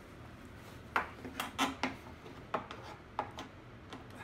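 A string of sharp clicks and light knocks as small metal fender-flare mounting hardware is fumbled by hand against the UTV's plastic body and frame while a bolt is being started blind.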